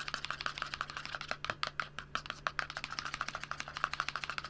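Metal spoon stirring a runny white-glue-and-water slime mix in a plastic bowl, clicking rapidly against the bowl, several clicks a second, then stopping at the end.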